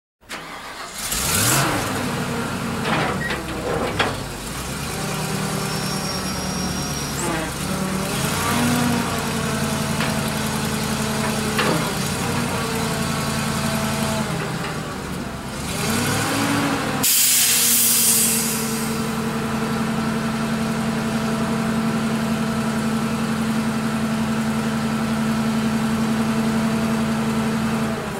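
1993 Ford F700's 7.0L V8 gas engine starting and being revved several times, rising and falling in pitch. About two-thirds of the way in, a loud hiss sounds, and the engine then runs steadily at a raised speed while the hydraulic hoist lifts the dump bed.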